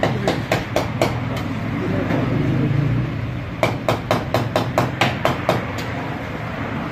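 A rapid series of sharp knocks, about four a second, in two runs: a short one at the start and a longer one from about halfway in, over a low background rumble.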